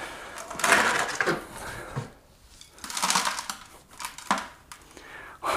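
Cured concrete stool casting scraping and crackling against the inside of a plastic bucket as it is worked loose and pulled out by hand. The noise comes in two rough spells, followed by a single knock about four seconds in.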